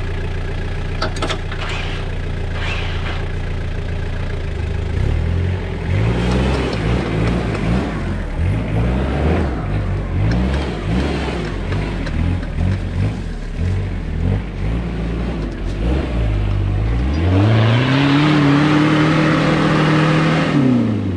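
Off-road pickup truck's engine idling, then revved up and down again and again as the truck works its way up a muddy slope, ending in one long hard rev that is held for a few seconds before dropping.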